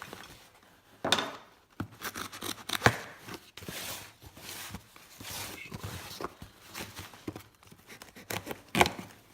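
Fiber packing tape being cut and the cardboard shipping box worked open: scratchy cutting and scraping, broken by a few sharp knocks.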